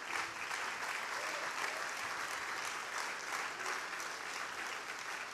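A congregation applauding, with steady, dense clapping.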